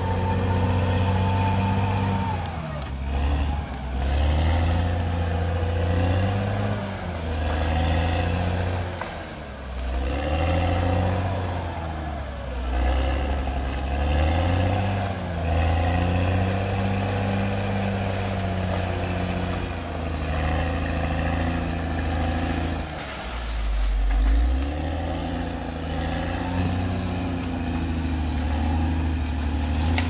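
Caterpillar D6R XL crawler bulldozer's diesel engine working, its pitch dropping and coming back up every two to three seconds as the machine takes and sheds load.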